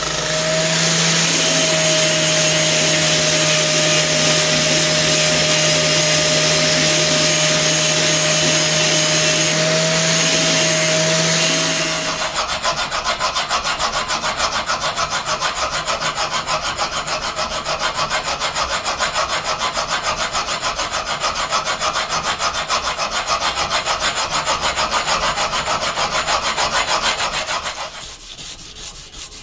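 A belt grinder running with a steady hum and belt hiss. About twelve seconds in it gives way to fast back-and-forth scrubbing of a hand-held abrasive along a steel knife blade clamped in a vise, which stops shortly before the end.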